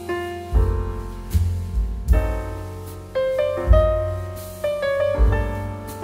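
Background instrumental music led by piano: notes struck and left to fade, with low bass notes coming in every second or so.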